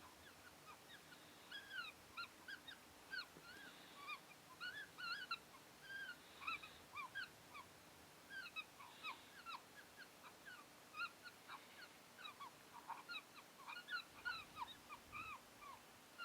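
A chorus of coyote yips: many short, high, arching calls tumbling over one another, starting about a second and a half in and going on without a break.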